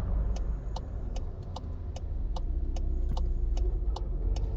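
Low rumble inside the cabin of a Volkswagen Polo 1.4 turbo with a 7-speed DSG moving off in traffic, the extraneous noise the owner likens to a slipping clutch and hears on the shift from first to second. A sharp regular tick sounds about two and a half times a second throughout.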